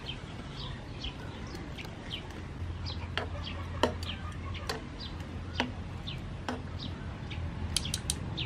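Metal tongs clinking against a wire-mesh strainer and a frying pan as boiled broccoli is lifted out of the water, a handful of sharp clicks spaced a second or so apart with a quick cluster near the end. Birds chirp in the background throughout.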